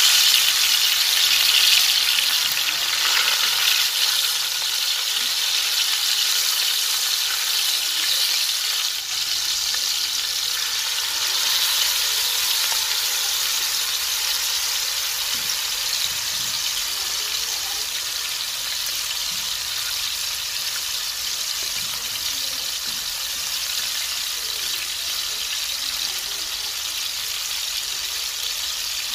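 Marinated fish pieces sizzling in hot oil in an iron wok: a steady frying hiss, loudest at the start just after a piece goes into the oil, then easing slightly and holding steady.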